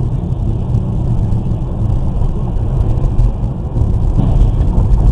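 Steady low rumble of a car's engine and tyres while driving along a highway, picked up inside the cabin by a dashcam microphone.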